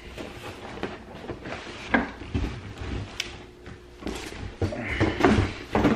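Cardboard shipping box being cut open with a knife and its flaps pulled apart: irregular rustling, scraping and knocks of cardboard, busiest in the last two seconds.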